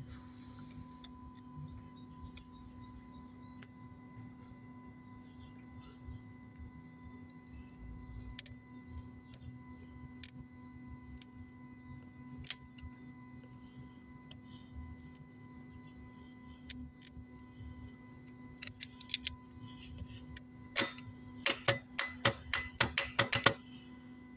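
Steady low hum with a few scattered sharp metallic clicks, then near the end a quick run of about a dozen loud clicks over some three seconds.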